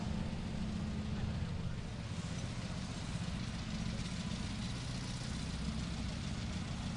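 A running engine, a steady low drone.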